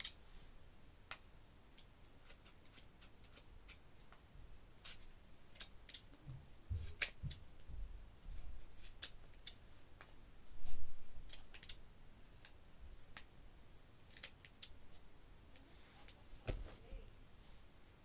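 Off-camera work on a Dyson DC03 vacuum's brush roll: scattered light clicks and ticks, with a few low thumps, the loudest about eleven seconds in.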